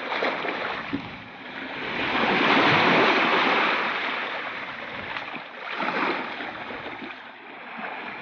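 Small waves washing in over sandy shallows. The surf swells to its loudest about three seconds in and rises again around six seconds.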